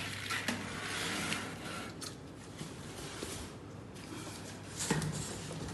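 Parts and packaging being handled and moved about: rustling and scraping with a few sharp knocks, the loudest about five seconds in.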